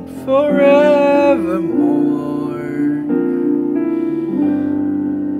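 A male voice sings a held note with a slight waver over a piano backing track. After about a second and a half the voice stops, and the piano goes on alone with sustained chords that change every second or so.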